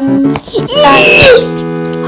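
Short comic music sting for a "ta-da" reveal: quick pitched notes and a sliding, voice-like sound in the middle, settling on a steady held chord about a second and a half in.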